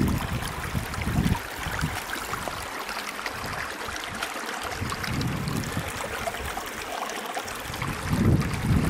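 Steady rush of flowing stream water, with wind buffeting the microphone at the start and again near the end.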